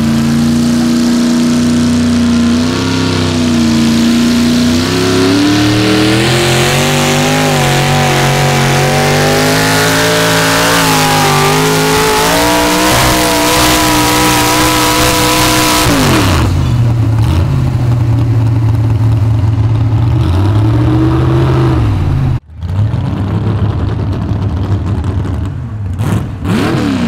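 Pulling tractor's engine at full throttle, hauling a weight-transfer sled, its pitch slowly climbing. About sixteen seconds in the pitch drops sharply as the throttle comes off at the end of the pull, and the engine settles to idle. After a cut, another pulling tractor's engine idles, with a quick rev near the end.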